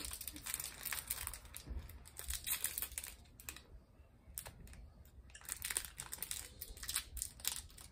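Shiny plastic wrapper of a Bubu Lubu mini candy bar crinkling and rustling as it is handled and opened by hand: quick crackles in two spells, with a quieter lull in the middle.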